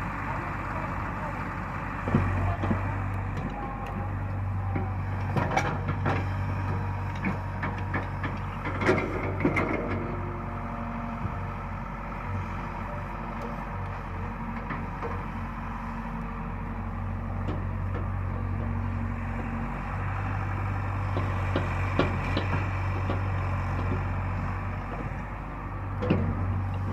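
Diesel engine of a JCB 145 NXT hydraulic excavator running as it digs, its low hum dropping out and coming back as the load changes, with knocks and clatter from the bucket and soil, mostly in the first ten seconds and again near the end.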